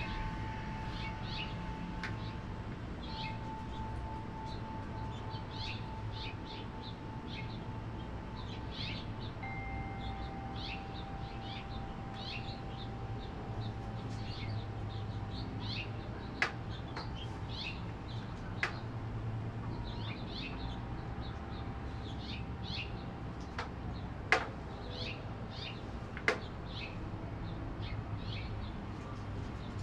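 Small birds chirping again and again, with long steady ringing tones from a wind chime held for several seconds at a time. Four sharp clicks, the loudest sounds, stand out in the second half over a low steady rumble.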